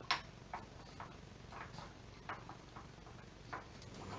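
Dog's claws clicking on a tiled floor, a scatter of light irregular clicks as the French bulldog shifts its feet.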